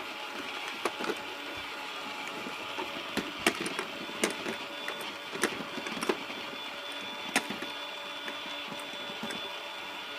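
The small electric motor of a toy fishing game whirring steadily, with sharp clicks at irregular intervals, about one a second.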